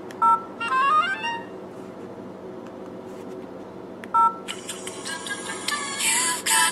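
LG 440G flip phone's keypad beep and built-in message alert tones from its small speaker. There is a short two-tone key beep, then a quick run of rising notes. About four seconds in, another key beep is followed by a longer, busier alert sound.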